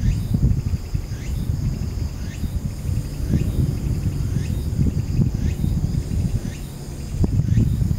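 Outdoor ambience: insects trilling steadily high up, with a short rising chirp about once a second, over a low, uneven rumble. The rumble is the loudest part and dips briefly near the end.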